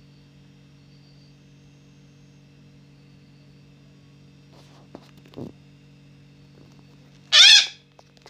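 A pet parakeet gives one loud squawk about seven seconds in, lasting about half a second, over a steady electrical hum; a couple of faint clicks come a little before it.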